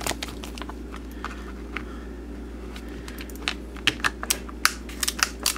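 Hand screwdriver backing small screws out of the plastic lid of a locking shopping-cart wheel. A few light clicks come at first, then a quick run of clicks from about two-thirds of the way in.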